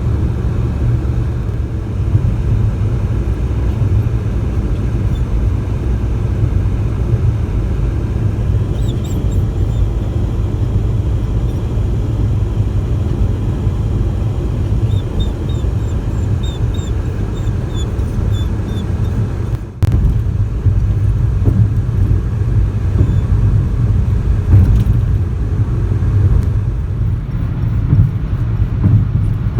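Toyota car driving down the road: a steady low rumble of tyre and engine noise. It dips briefly about twenty seconds in.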